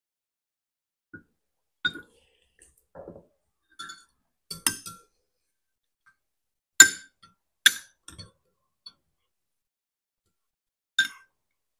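Spoons clinking against soup bowls during a meal: a scattering of short, sharp clinks, the two loudest about seven and eight seconds in and another near the end, with softer handling noises between.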